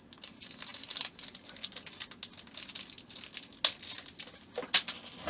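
Light crinkling rustle and small clicks of plastic model kit parts and packaging being handled, with two sharper clicks near the end.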